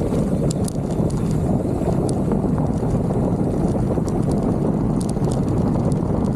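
Wind buffeting the microphone and tyres rolling as a mountain bike descends: a steady rushing noise, with a few light high ticks and rattles from the bike.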